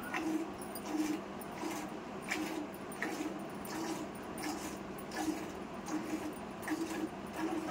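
Cow being milked by hand: milk squirting into a steel pail in a steady rhythm, about three squirts every two seconds.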